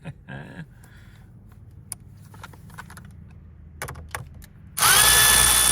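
Light clicks and rattles of handling, then about five seconds in a Milwaukee cordless drill starts and runs at steady speed with a whine. It is driving bolts threaded into the steering wheel hub to push the wheel off its shaft.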